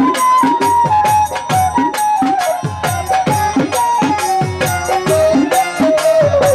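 Instrumental interlude of Bangladeshi folk music: a held melody line stepping slowly downward over a fast, even rhythm of drum strokes, the low strokes bending down in pitch.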